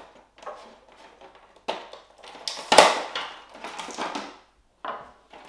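Game packaging being handled and unwrapped by hand: irregular rustling and crinkling, with the loudest crinkle about halfway through.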